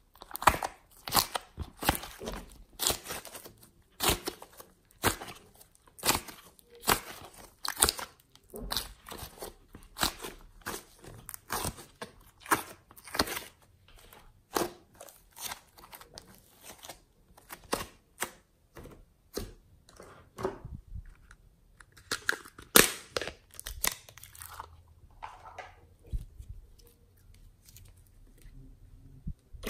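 Slime mixed with soft clay being squeezed and kneaded by hand, giving sharp crackling pops and squishes, a few each second. The pops thin out near the end.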